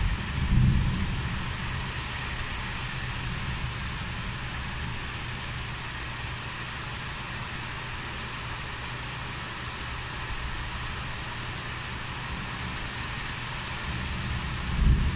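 Heavy tropical-storm rain and wind heard from indoors, a steady rushing noise, with low rumbles about a second in and again near the end.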